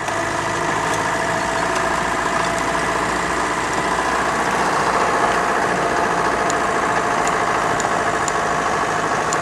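Land Rover engine running steadily while driving slowly, heard from inside the cab.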